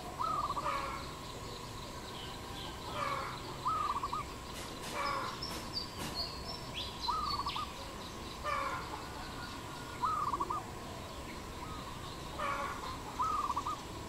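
A dove cooing: a short wavering call repeated about five times, roughly every three seconds.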